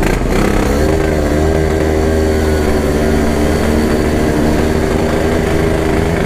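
Yamaha RX-King's two-stroke single-cylinder engine running under way, its pitch climbing slightly in the first second or so and then holding steady.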